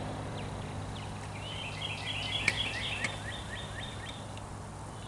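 A songbird sings a quick run of short, falling chirps, starting about a second and a half in and stopping near the end, over a steady low hum. Two sharp knocks come in the middle of the song, the loudest sounds.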